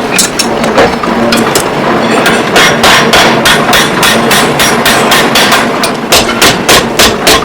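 Rapid hammering on metal while a hinge is being made by hand. The blows are uneven at first, then settle about two and a half seconds in into a fast, even run of about three to four a second, over a faint steady hum.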